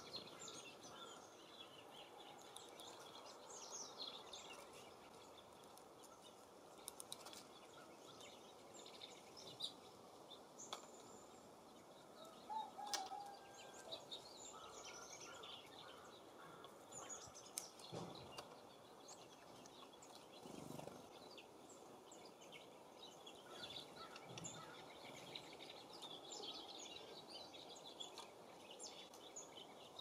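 Faint, scattered chirps and short calls of small songbirds over a steady low hiss of wind, with a few brief clicks here and there.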